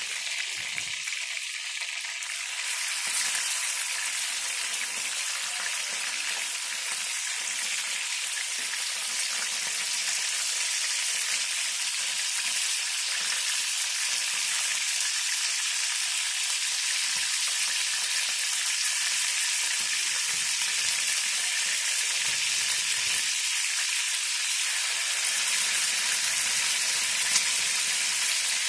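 Chicken pieces frying in hot oil in a pan: a steady sizzle that grows louder and fuller about three seconds in.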